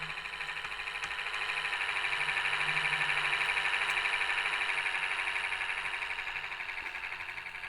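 A bus's electronic warning buzzer sounding a rapid pulsing tone, louder in the middle and fading near the end.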